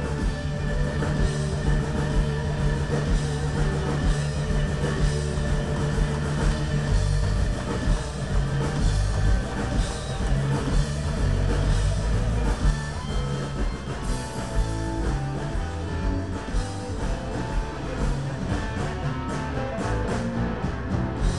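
Live band playing amplified through a stage PA: electric guitars over a steady drum kit beat, in a blues-rock style.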